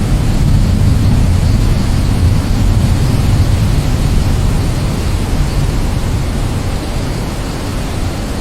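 Steady heavy rain, with a low rumble underneath that is louder in the first half.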